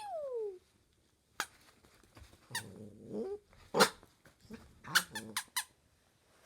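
Puppy making its funny small sounds: a whine falling in pitch at the start, a short low grumbling growl partway through, and several sharp, brief squeaky yips.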